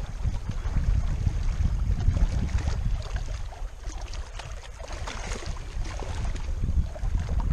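Wind buffeting the microphone, a low rumble that swells and dips unevenly.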